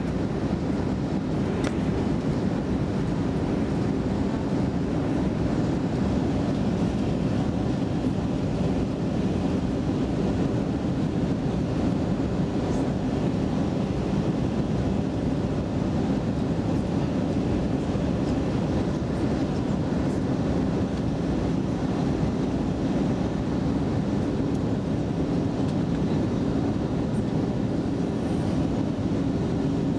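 Steady cabin noise inside an Airbus A320 descending on approach: an even, low drone of the jet engines and the airflow past the fuselage.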